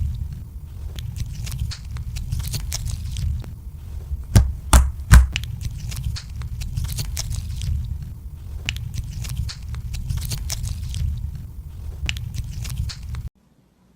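Slime being squished and stretched by hand, making many small sticky clicks and crackles over a steady low hum, with two louder pops a little before halfway. The sound cuts off suddenly near the end.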